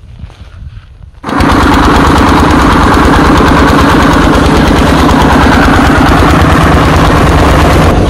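Rice threshing machine running at full work, belt-driven by a single-cylinder diesel engine: a loud, steady mechanical clatter over a rapid engine chug as rice straw is fed into the drum. It starts abruptly just over a second in.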